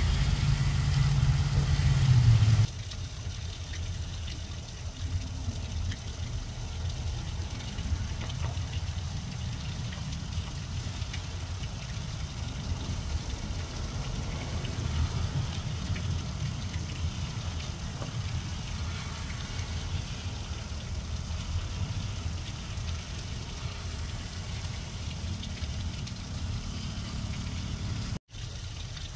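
Steady rain falling on grass and low weeds, an even hiss with a heavy low rumble under it. It opens with a louder sound carrying a low steady hum that cuts off about three seconds in, and the sound drops out for a split second near the end.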